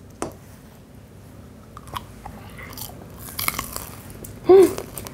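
Chewing and crunching of deep-fried chicken gizzards in a crisp batter coating: scattered crunches, a quick cluster of them about three and a half seconds in. Near the end comes one brief vocal sound, the loudest thing heard.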